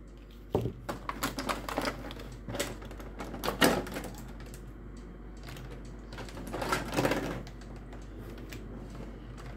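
Clear plastic blister packaging being handled and pulled open: irregular clicks and crackles of the thin plastic shell, with a few louder bursts.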